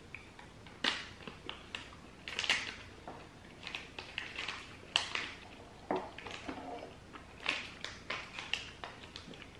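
Plastic protein-bar wrapper crinkling and crackling in the hands as it is opened, in irregular bursts of sharp crackles.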